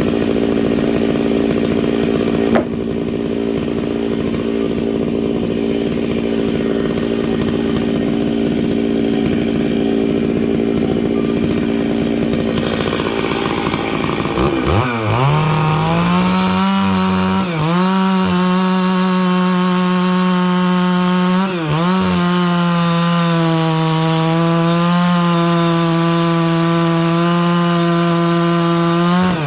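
Stihl MS 660 chainsaw with a 36-inch bar running at a steady high pitch while rip-cutting dry larch lengthwise. About halfway through, the engine note drops sharply, then climbs and settles at a lower steady pitch, dipping briefly a few times.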